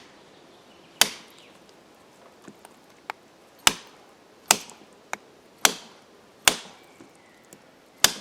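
Cold Steel RECON 1 Tanto folding knife chopping into a large bone: six sharp chops at irregular intervals of about a second, with a few lighter knocks between them.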